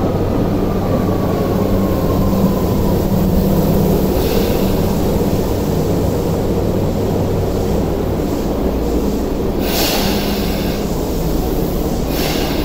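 Tokyu 8500 series subway train rolling into the platform and slowing to a stop: a steady low rumble, with a faint whine falling in pitch near the start. Short bursts of hiss come about four seconds in and again near ten and twelve seconds.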